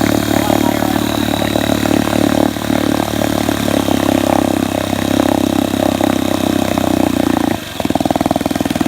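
1964 Wards Sea King 3 hp two-stroke outboard motor running steadily. About seven and a half seconds in its note drops and it runs slower and rougher, with separate firing beats.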